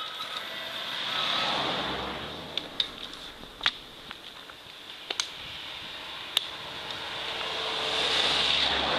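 Wind rushing on the microphone and tyre noise from a touring bicycle rolling on asphalt, swelling about a second in and again near the end, with a few sharp clicks and knocks from the bike.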